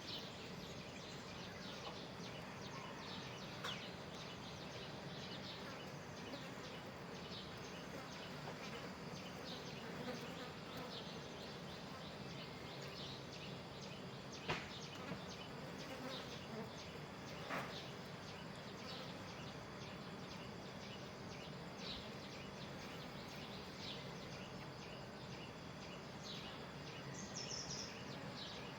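Outdoor nature ambience with a steady hum of buzzing insects, broken by a few brief sharp clicks or chirps.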